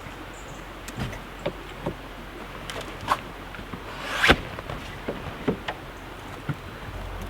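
Irregular knocks and clatters of camp gear being handled during setup, with one louder knock about four seconds in.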